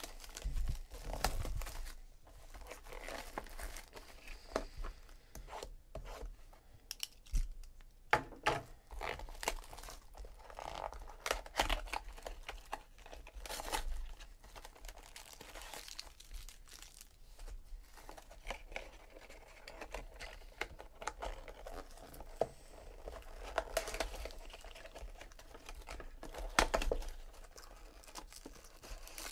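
Hands tearing open foil trading-card pack wrappers, with many short rips and the crinkling of the wrappers and loose plastic wrap.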